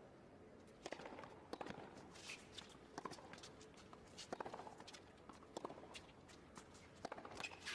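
Faint tennis rally on a hard court: a serve, then sharp racket strikes on the ball about every second or so, with players' footsteps on the court between them.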